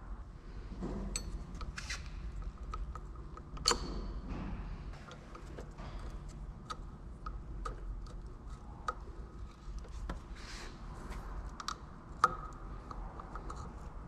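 Scattered small metallic clicks and taps of hand tools and lever parts being handled while a motorcycle clutch lever is taken off its perch, with two sharper clicks, one about four seconds in and one near the end.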